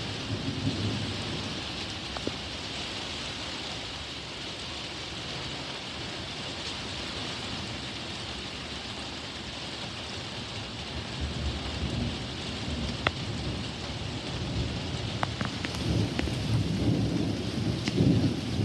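Steady rain falling during a thunderstorm, with thunder rumbling low: a short roll near the start, then a longer rumble that swells from about halfway through to the end. A few sharp ticks of drops hit close by.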